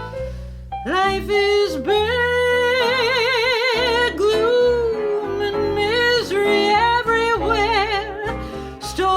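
A woman singing a slow torch song with wide vibrato over a soft instrumental accompaniment; her voice comes in about a second in.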